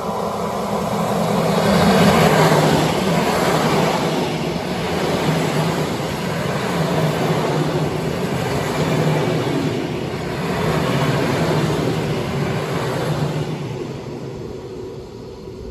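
PKP EN57FPS electric multiple unit running on the tracks: wheel-on-rail noise over a steady low hum, loudest about two seconds in, rising and falling a few times, then fading near the end.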